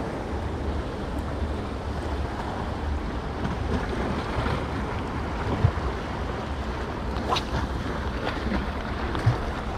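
Wind buffeting the microphone over sea waves washing against shoreline rocks, a steady rumbling hiss. A short knock about five and a half seconds in and a lighter one near the end.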